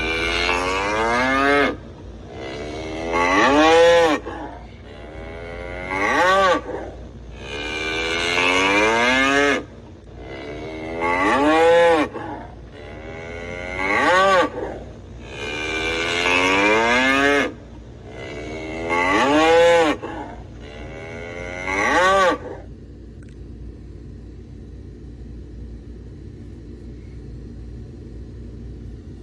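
Bull bellowing over and over, about nine loud calls that rise and fall in pitch, some drawn out and some short. The bellowing stops about two-thirds of the way in.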